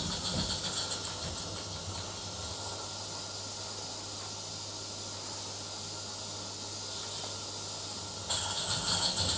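Steady hiss of steam from a live steam O gauge model locomotive. Near the end the rhythmic clatter of the train running on the track comes back in abruptly.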